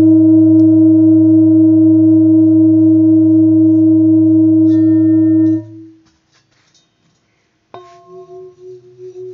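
Handmade seven-metal Himalayan singing bowls. One bowl holds a loud, steady, deep ring with a slow beat, then is stopped about five and a half seconds in. About two seconds later the next, slightly higher-pitched bowl is struck and rings on with a wavering beat.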